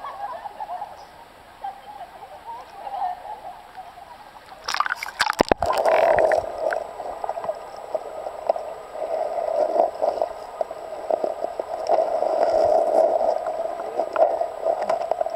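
River water lapping, then a splash about five seconds in as the microphone plunges under the surface. After that comes steady, muffled underwater gurgling and bubbling.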